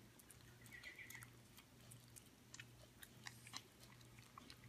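Near silence: room tone with a low steady hum and faint scattered clicks.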